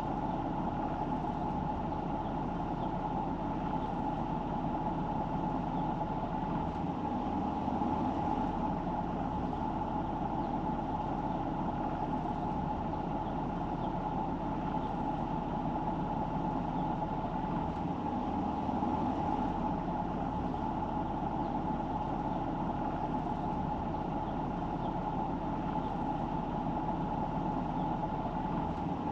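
Car driving: steady engine and road noise with a constant mid-pitched hum and low rumble.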